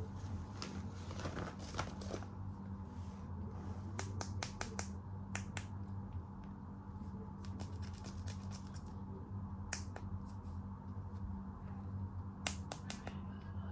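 Sharp clicks and taps of plastic toys and packaging being handled, coming in small clusters over a steady low hum.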